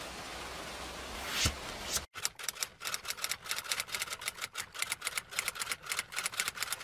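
Typewriter-style typing sound effect: rapid key clacks, several a second, starting about two seconds in. Before it there is a steady hiss with a short whoosh.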